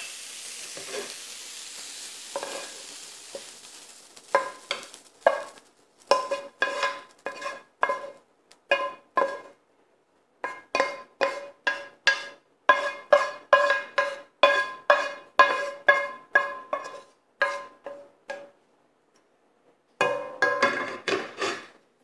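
Sizzle from the hot frying pan fading over the first few seconds, then a wooden spatula scraping crumbled tofu out of the tilted pan onto a plate in quick repeated strokes, about two a second, each stroke making the pan ring.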